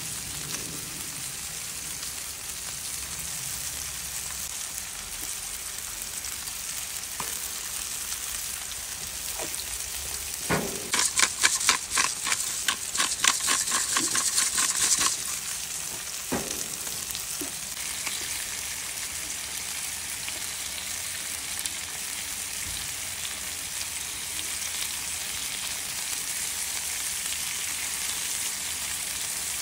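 Hash browns and steaks sizzling on a hot flat-top griddle, a steady frying hiss. About ten seconds in, a few seconds of rapid rattling as seasoning is shaken over the potatoes, louder than the sizzle.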